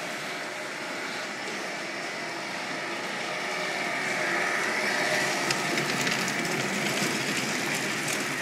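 Radio-controlled Tamiya King Hauler truck towing a draw-bar road train of trailers over a concrete floor: electric drive and gearbox whine with the wheels rolling, getting louder from about three and a half seconds in as the rig passes close by.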